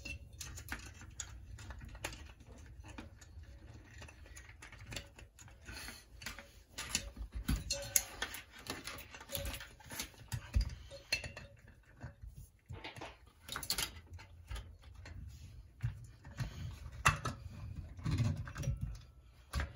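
Hands handling a replacement refrigerator compressor and its wiring: irregular clicks, taps and light knocks, busier in the second half, over a low steady hum.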